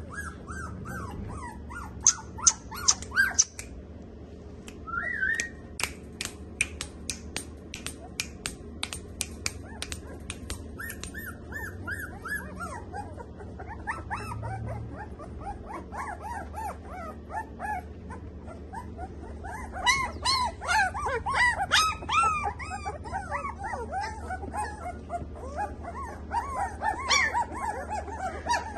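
A litter of young Samoyed puppies whimpering and squealing in many short, high, overlapping cries, busiest from about two-thirds of the way in. A quick run of sharp clicks comes early on the way through.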